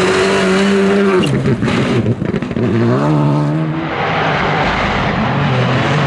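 Rally2 car engines at full throttle on a gravel stage: a Škoda Fabia RS Rally2 holds a steady high note, lifts about a second in with a run of sharp cracks, then picks up and climbs again. Near the end a camouflaged Toyota GR Yaris Rally2 approaches on a lower, steady engine note.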